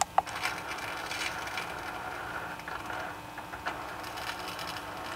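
Holset HE351VE electronic turbo actuator running its calibration sweep, its motor driving the sector gear with a steady mechanical whir, a faint hum and a few light ticks, after a single click at the very start.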